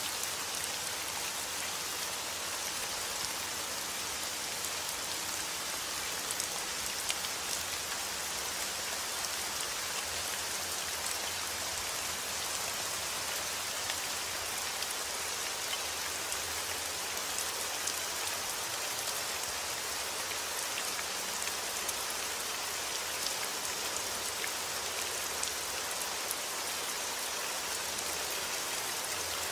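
Heavy rain falling steadily, a dense hiss of drops with fine pattering on surfaces and no thunder.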